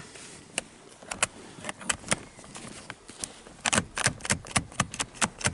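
Metal seatbelt latch plate pushed again and again into the buckle of a 2007 Chevrolet truck, clicking and clacking without latching: the buckle is faulty. A few scattered clicks at first, then several a second in the second half.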